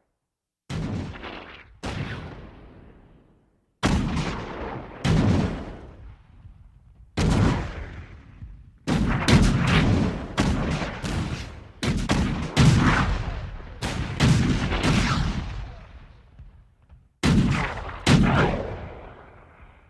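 Cannon fire in a battle: a long series of heavy shots, each followed by a rumble that dies away. They come singly at first, crowd together in a rapid volley through the middle, then two more near the end.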